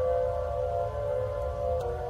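Emergency alert alarm tone: a steady droning chord of several held tones over a low rumble, the tones dipping slightly in pitch near the end.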